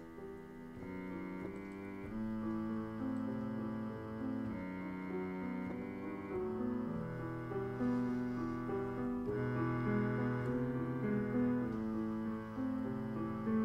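Instrumental passage of a song played on piano, sustained chords and melody notes without singing.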